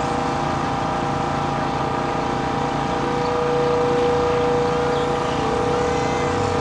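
Steady motor drone made of several unchanging tones. A single clear hum grows louder about halfway through.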